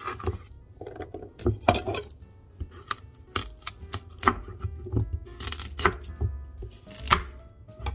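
Chef's knife chopping raw carrots into rounds on a plastic cutting board: a string of sharp, irregular knocks at roughly two a second as the blade goes through the carrot and hits the board.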